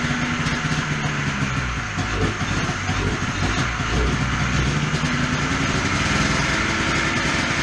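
Polaris snowmobile's two-stroke engine running in the garage just after being started, its speed wandering up and down.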